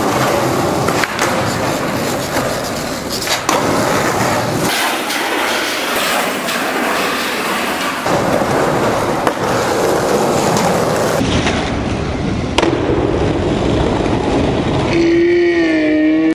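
Skateboard wheels rolling over concrete, a steady rolling noise with scattered clicks and knocks from the board. Near the end a brief wavering pitched sound rises over it.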